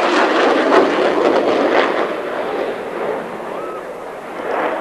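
F-14 Tomcat's jet engines rumbling with a ragged crackle as the fighter climbs away, the noise fading over the first few seconds.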